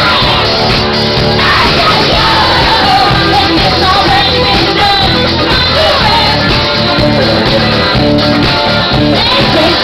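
Live rock band playing loud, a woman singing lead over bass, guitar and a steady beat, heard from among the audience.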